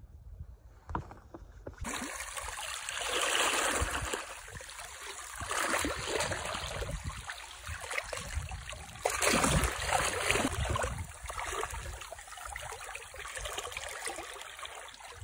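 Sea water washing and trickling over shoreline rocks. It starts about two seconds in and swells louder every few seconds, over a low rumble of wind on the microphone.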